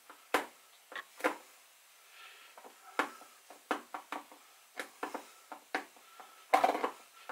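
Metal fork pressing around the pastry edge of a pie, its tines tapping on the enamel pie dish rim beneath in a string of sharp, irregular clicks as the lid is crimped down. A louder, longer scrape comes near the end.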